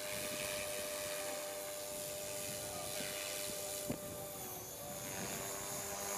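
Align T-Rex 500 EFL Pro electric radio-controlled helicopter in flight, its motor and rotor giving a steady whine of several held tones. A single sharp tap comes about four seconds in.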